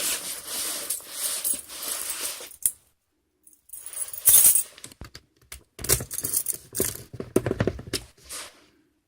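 Keys and small metal parts being handled: irregular jangling, clicks and light knocks, with a brief gap about three seconds in.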